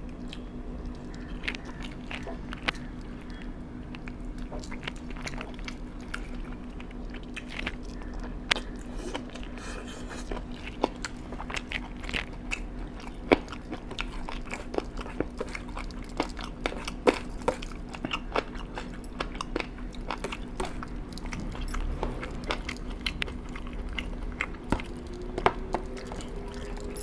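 A person chewing and biting into food close to the microphone, with irregular crunches and wet clicks, over a steady low hum.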